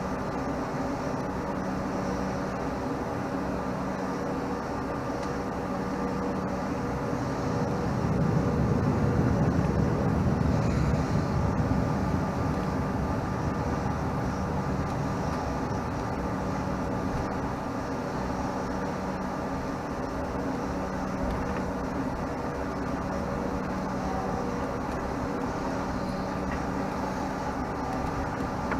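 Bombardier CRJ-700's General Electric CF34 turbofan engines running steadily, heard from inside the cabin as a drone with a few held tones. A deeper rumble swells for a few seconds about eight seconds in.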